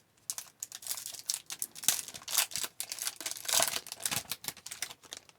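A foil trading-card pack wrapper being torn open and crinkled by hand, a busy run of irregular crackling and rustling.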